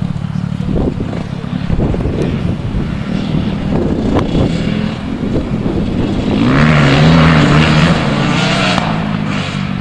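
Dirt bike engines on a motocross track, their pitch rising and falling as the riders work the throttle; about six and a half seconds in, one bike grows louder as it accelerates hard.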